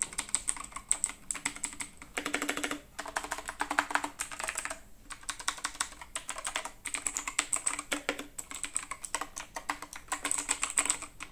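Razer BlackWidow 2019 mechanical keyboard with Razer Green clicky switches being typed on fast: a dense, steady stream of sharp key clicks, broken by a few brief pauses.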